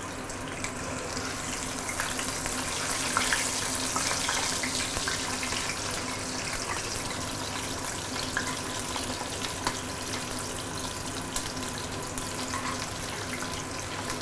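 Hot oil sizzling steadily around small Indian mackerel (ikan kembung) shallow-frying in a stainless steel pan, with a few light clicks of a metal spoon against the pan as the fish are loosened to be flipped.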